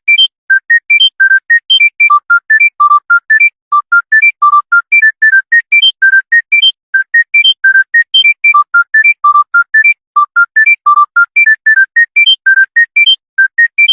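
Smartphone ringtone: a fast electronic melody of short, clean, high notes, about four or five a second, running up and down in quick runs. It breaks off briefly twice, once before the middle and once about two-thirds through.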